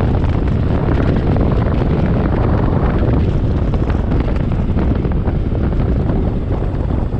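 Wind rushing over the microphone of a camera on a moving motorcycle, with the motorcycle's engine and road noise running steadily underneath.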